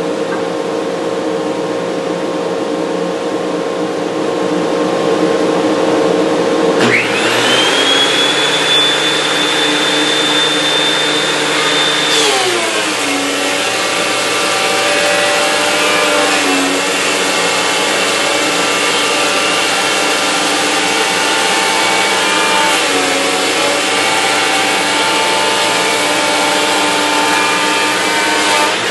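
Oliver 1044 benchtop planer's motor spinning up with a rising high whine, then dropping in pitch and labouring as a pine board feeds through the Shelix helical cutter head, with small dips along the pass and the whine climbing back as the board clears near the end. A steadier lower motor hum runs under it throughout.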